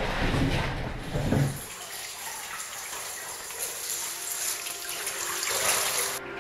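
Water sloshing and splashing around a caver wading waist-deep through a cave pool, loudest in the first second and a half. It then settles into a steady trickling hiss of moving water.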